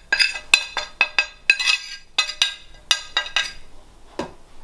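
A dozen or so quick, ringing clinks of a plate tapped against a ceramic mixing bowl to knock the spices off it, stopping after about three and a half seconds, then one duller knock near the end.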